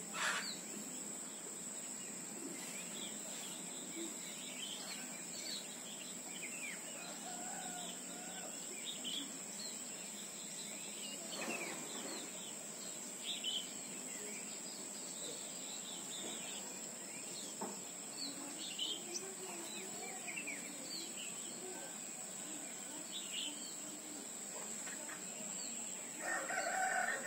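Birds chirping and calling sporadically, with some lower fowl-like calls, over a steady high-pitched insect whine; a louder burst of calls near the end.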